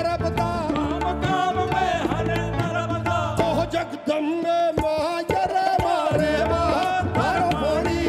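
Live fusion rock band: a man singing over electric bass, drums and guitar. Near the middle the bass drops out for about two seconds, with a few sharp hits, before the full band comes back in.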